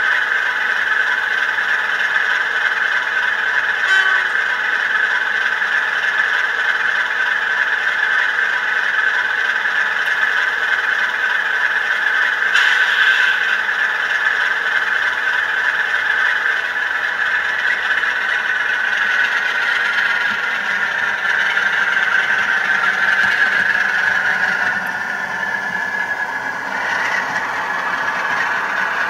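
Bachmann OO-gauge model Class 47 diesel locomotive's engine sound, played by its DCC sound decoder: a steady diesel running note while it stands at the platform, changing in the last few seconds as it pulls away with its coach.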